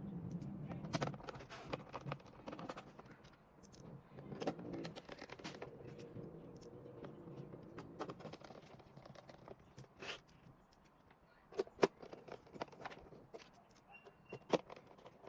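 Handling noise from a handheld diagnostic scanner being worked on by hand: rustling and scraping with scattered sharp clicks and taps. The loudest is a close pair of clicks about twelve seconds in.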